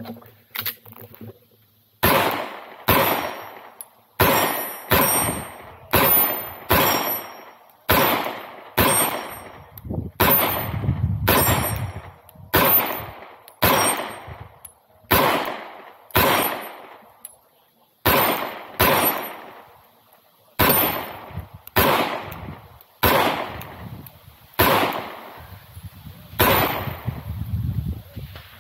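A long string of gunshots from a single shooter, starting about two seconds in and keeping a steady pace of roughly one shot a second. Each sharp crack trails off in a short echo.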